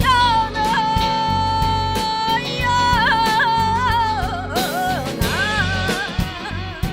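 Background song with a sung melody, a long held note about a second in, over a steady drum beat.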